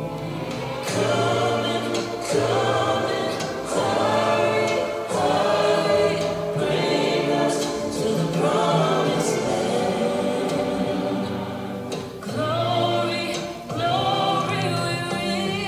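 Music with a choir singing long held phrases over a steady low accompaniment.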